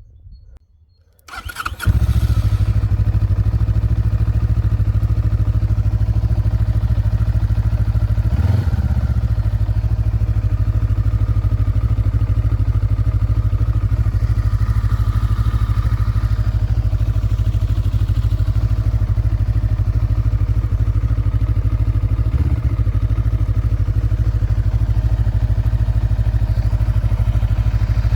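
Junak SR 400 (Zongshen Cyclone RE3) motorcycle on its stock exhaust starting: a brief crank about a second in, the engine catches and then idles steadily, with a short change in the note twice.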